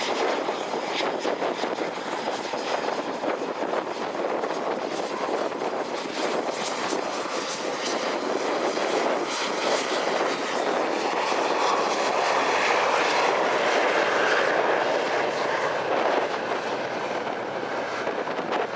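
Eurofighter Typhoon's twin jet engines on the takeoff roll: a continuous roar that swells and rises in pitch toward the middle and later part as the jet accelerates past. Gusty wind buffets the microphone throughout.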